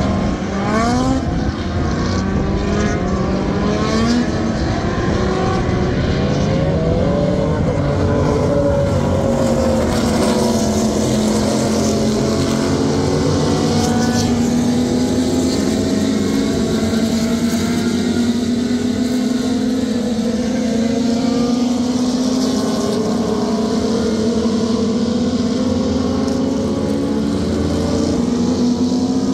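Historic 1960s–70s endurance sports-prototype race cars passing at racing speed. Several engines rev up and drop again through gear changes in the first few seconds, then a long engine note holds and rises slowly.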